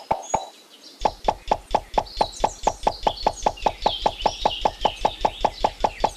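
Small pebbles tapped down one after another onto the rim of a plastic pond liner: a fast, even run of sharp clicks at about six a second that starts about a second in. Birds chirp faintly in the background.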